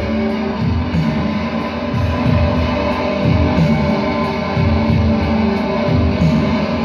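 Loud amplified electric guitar played live: sustained notes ringing over a low part that shifts every second or so.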